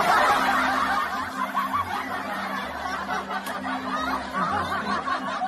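Dense laughter from many people, like a canned laugh track, starting abruptly, over background music.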